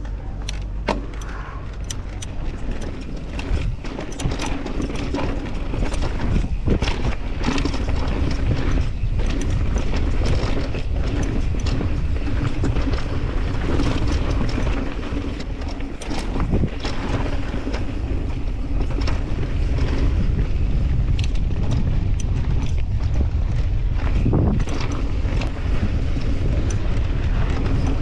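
Downhill mountain bike riding a dirt and rock trail: wind buffeting the helmet-mounted microphone, with the bike's tyres, chain and frame rattling and clicking over the rough ground. It gets louder about six seconds in as the bike picks up speed.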